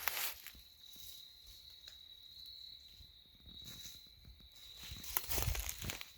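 Footsteps crunching through dry leaf litter, heard at the start and again near the end, under a steady high-pitched insect drone.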